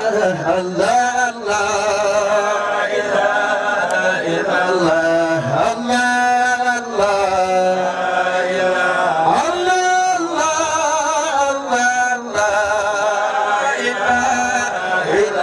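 A man chanting Islamic devotional verse (dhikr) in long, wavering melismatic phrases with short breaks between them.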